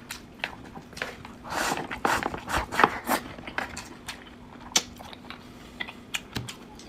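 Eating sounds: irregular light clicks of utensils against a bowl or dish, with soft chewing and mouth noises.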